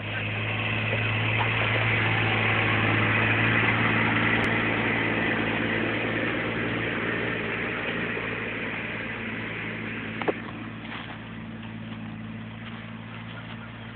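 Kubota utility vehicle's engine running at a steady speed as it drives along, loudest over the first several seconds and growing fainter as the vehicle moves away. There is a single short click about ten seconds in.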